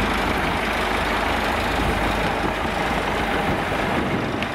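Heavy truck's diesel engine running steadily, a constant low rumble.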